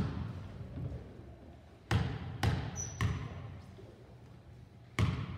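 Basketball bounced on a hardwood gym floor before a free throw, each bounce a sharp smack that rings in the gym. There is one bounce at the start, three in quick succession about two seconds in, and one more near the end.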